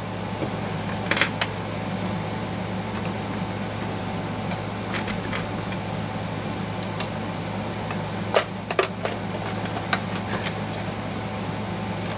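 Steady hum of a fan or air conditioner, with scattered small clicks and taps as the sewing machine's parts are handled while tangled thread is worked loose; a brief rustle about a second in.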